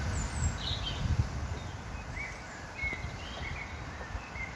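Outdoor background of a low, steady rumble with several short, faint bird chirps scattered through it.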